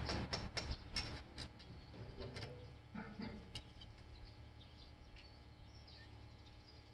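A quick series of sharp clicks or knocks, fading out over the first two and a half seconds, then faint high chirps of birds.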